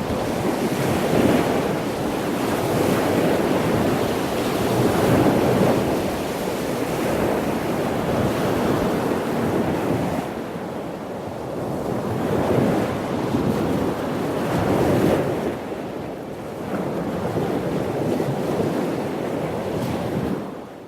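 Ocean waves breaking on the shore, a continuous rush of surf that swells and eases every few seconds, with some wind on the microphone. The sound fades out at the very end.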